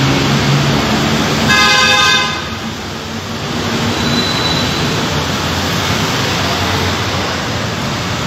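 Steady city street traffic noise, with a vehicle horn tooting once for under a second about a second and a half in.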